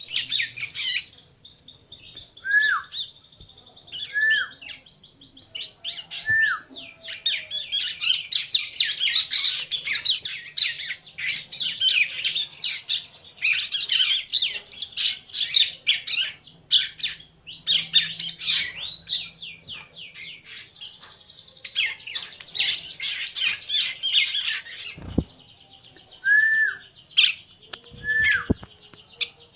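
Bar-winged prinia (ciblek) singing in long bursts of rapid, high chattering trills, broken by a few short down-slurred whistle notes. A couple of sharp knocks sound near the end.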